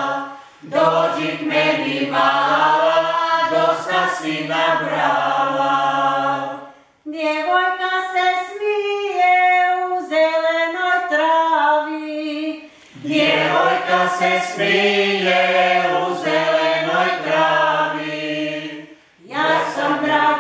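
A group of voices singing a Croatian folk song a cappella in phrases a few seconds long, with short breaks between them. Lower voices carry the first phrase. A higher group of voices sings alone from about seven to thirteen seconds, then the lower voices come back.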